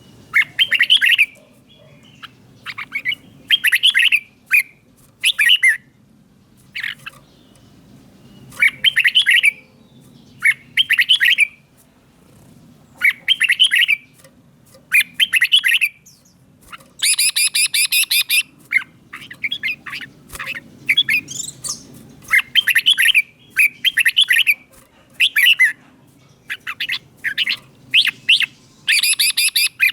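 Red-whiskered bulbul singing: short, rich whistled phrases repeated every second or two, with one longer, faster run of notes about 17 seconds in.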